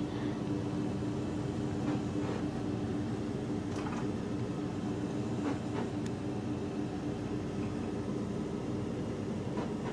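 Steady mechanical hum with a constant low droning tone, and a few faint ticks.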